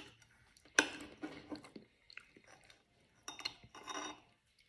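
A metal spoon clinking and scraping against a plate while cutting into food, with one sharp clink about a second in and a longer stretch of scraping near the end, and chewing in between.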